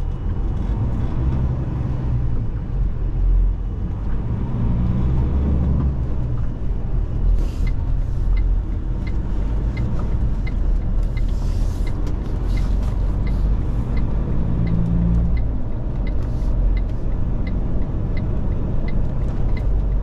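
Inside the cab of an IVECO HGV: the engine and road noise run steadily as the truck drives on, with two short hisses partway through. From a little before halfway, the turn indicator ticks regularly, about three times every two seconds.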